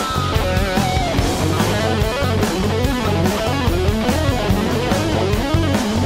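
Rock music: electric guitar lines that bend in pitch over bass and a steady beat.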